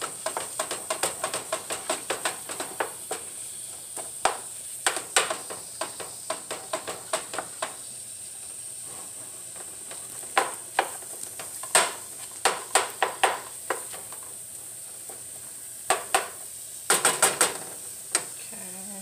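Ground chuck and onions sizzling in a frying pan while a utensil breaks up the meat, tapping and scraping against the pan. The strokes come quickly for the first several seconds, then scattered, with a short flurry near the end.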